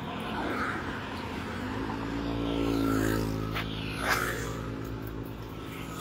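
A motor vehicle passing on the road, its engine hum swelling to a peak about halfway through and then fading, with a couple of short clicks just after the peak.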